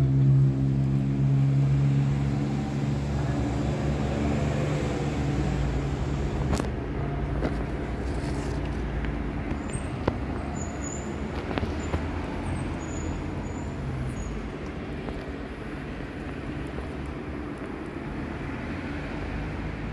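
Steady road traffic rumble, with an engine's low hum fading out over the first few seconds and a few faint clicks.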